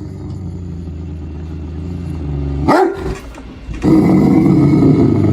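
Dog growling with a low, steady rumble, cut by one short sharp bark a little before three seconds in, then growling again, louder, near the end.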